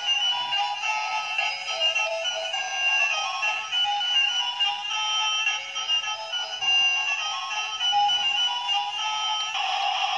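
Toy bubble gun train playing its built-in electronic tune, a quick stepping melody of thin single notes from a small speaker. A hiss rises under the tune near the end.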